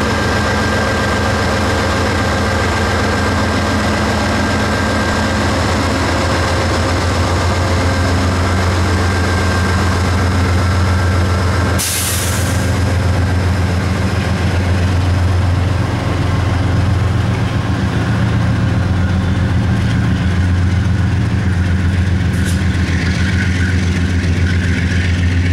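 Amtrak California diesel locomotive's engine running with a steady low drone as the train pulls out. A short, sharp hiss cuts through about halfway.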